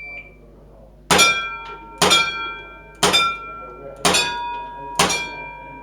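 A shot timer's start beep, then five revolver shots about a second apart, each hit ringing on steel target plates with a lingering metallic ring.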